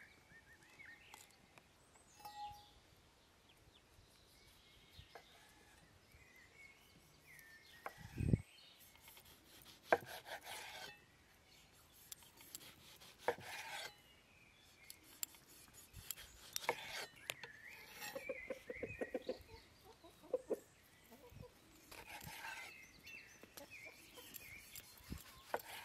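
Chickens clucking, with small birds chirping. In the second half a kitchen knife slices tomatoes on a wooden board, each stroke a short knock as the blade meets the wood.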